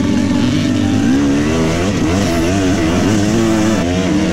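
Dirt bike engine running hard, its pitch rising and falling over and over as the throttle is worked.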